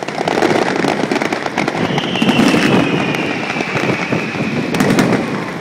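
Aerial fireworks bursting in quick succession, a dense run of booms and crackling, with a long whistle starting about two seconds in that slowly falls in pitch.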